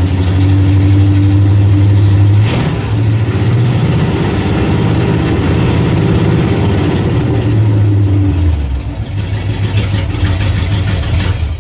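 1985 Chevrolet K10 pickup's engine running, a steady low drone that changes note about two and a half seconds in and again about eight and a half seconds in, then stops right at the end.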